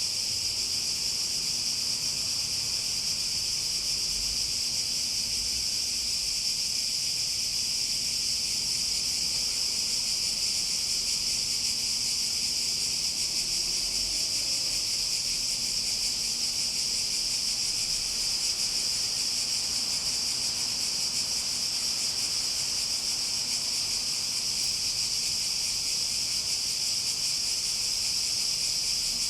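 Cicadas in a continuous chorus: a steady, high, unbroken buzz that holds the same level throughout.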